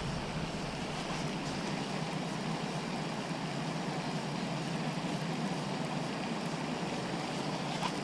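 Steady outdoor rushing noise with no distinct sounds standing out.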